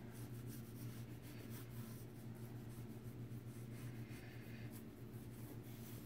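Faint scratching of a wooden graphite pencil sketching lightly on a sheet of paper, in a series of short strokes.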